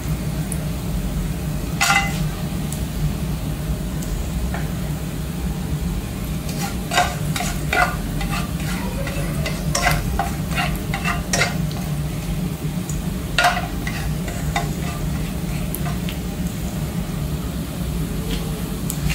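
Whole spices (bay leaves, cinnamon, cloves, cardamom) sizzling in hot ghee and coconut oil in a pot, with scattered sharp pops and crackles, thickest in the middle stretch, over a steady low hum.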